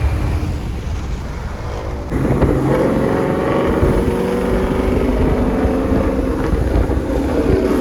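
V8 car engine pulling hard under acceleration. It gets louder and fuller about two seconds in, then holds while rising slightly in pitch.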